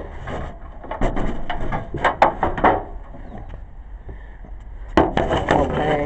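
Handling noise: bumps, knocks and scraping as a handheld camera is carried about and gear is shifted. The sounds come in clusters about a second in, around two seconds in and near five seconds in, with a quieter stretch between.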